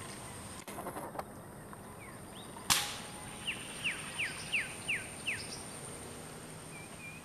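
A single sharp crack of an air rifle shot about two and a half seconds in, followed by a bird calling six quick descending whistled notes.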